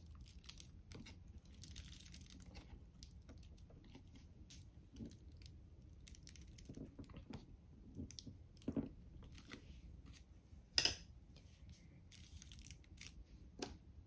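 Faint crinkling of plastic deli wrap and scattered small clicks as hands press a cookie cutter down through the wrap into two layers of polymer clay, with one sharper click near the end.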